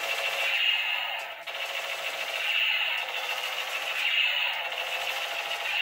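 Battery-powered light-up toy machine gun playing its electronic firing sound effect through a small speaker: a continuous rattling buzz that swells about every second and a half.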